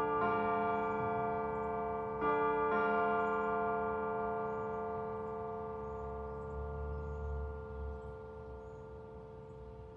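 Carillon bells in a tower striking a few chords in the first three seconds, then ringing on and slowly dying away.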